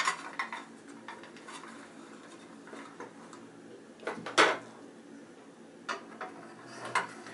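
Scattered handling clicks and knocks as scissors are set at an angle in a homemade sharpening jig, with one louder knock about four seconds in.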